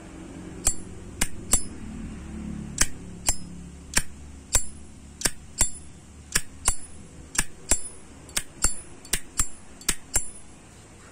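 A 2019 Zippo lighter's hinged brass lid being flicked open and snapped shut over and over. It gives sharp metallic clinks in quick pairs, about seven or eight pairs, with a brief bell-like ring.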